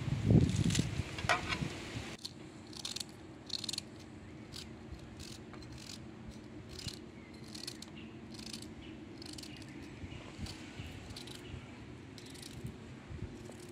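A small knife shredding crisp lettuce leaves over a bowl. About two seconds in this gives way to short, crisp cuts through red cabbage, about two a second, over a steady low hum.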